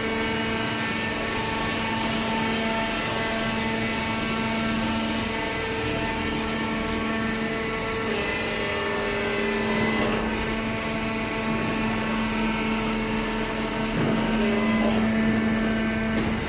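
Small hydraulic cardboard baler running: its motor and hydraulic pump give a steady hum that shifts slightly in pitch a few times, with a couple of short knocks about ten and fourteen seconds in.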